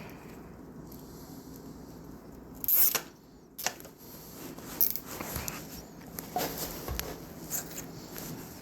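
Hands working on bicycle parts: a short rasping noise about three seconds in, a sharp click, then a run of light clicks, rattles and rustles.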